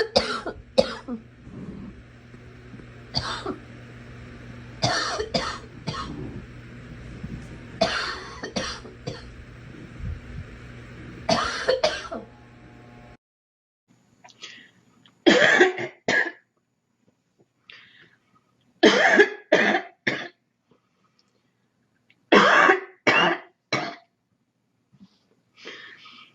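A girl coughing in short fits of two or three coughs, a few seconds apart. A steady hum runs behind the first half and cuts off abruptly about halfway through.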